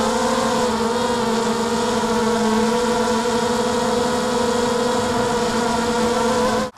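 Mini quadcopter's four MN2204 2300kv brushless motors spinning HQ 5030 props in fast, low flight: a steady whine with a slight waver in pitch, cut off abruptly at the very end.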